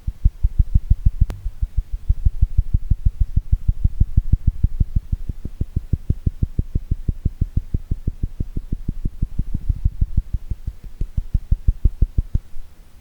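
Rapid fingertip tapping, a fast, even run of dull, low thuds at several taps a second, with one sharper click about a second in; the tapping stops near the end.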